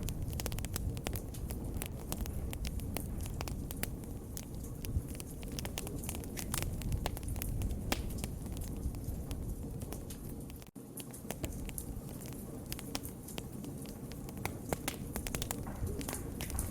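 Wood fire crackling, with irregular sharp pops and snaps over a low steady rumble of the flames. The sound cuts out for an instant a little after halfway.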